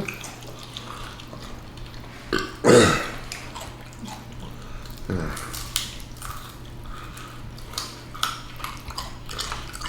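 A person burps loudly about three seconds in, with shorter burps or mouth noises just before and around five seconds, and small clicks of eating in between.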